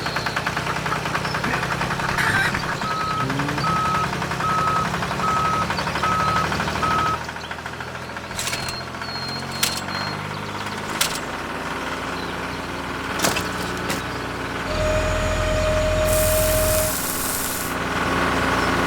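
A small vehicle engine running with a steady rattle, with a run of evenly spaced beeps over it early on. Later come scattered clicks and knocks, then a louder low hum with a brief hiss near the end.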